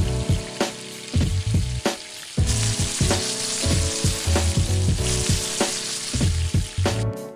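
Pancake batter sizzling in a hot griddle pan, the hiss growing louder about two and a half seconds in. Background music with a steady beat plays over it.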